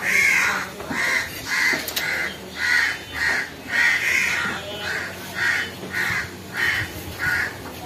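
A crow cawing over and over, about a dozen harsh caws at roughly two a second.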